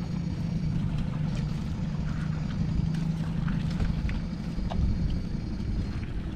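Small engine running steadily at a low pitch, with scattered knocks and clicks. A faint high whine stops near the end.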